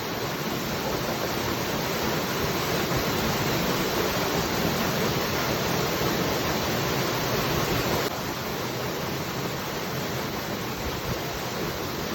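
Waterfall: a steady, even rush of falling water. It steps down slightly in level about eight seconds in.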